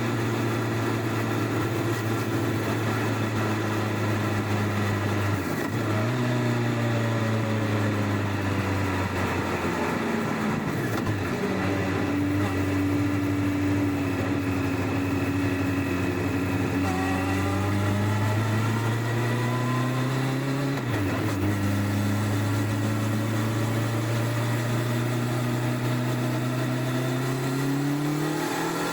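Stock-exhaust Honda CBR1100XX Blackbird inline-four engine running under way, heard from under the rear seat. Its revs hold, then climb, with sharp dips and recoveries at gear changes about five, eleven and twenty-one seconds in. The revs rise steadily near the end.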